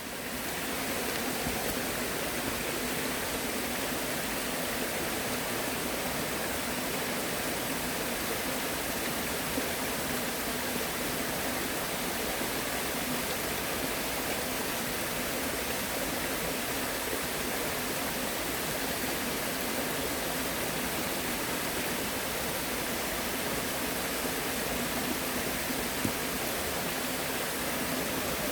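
Steady rush of flowing water, fading in over about the first second.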